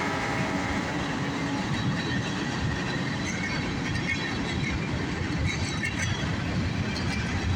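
CSX mixed freight train rolling past, a steady rumble of cars and wheels on the rails with a few faint high squeaks. The horn has just cut off as the rumble begins.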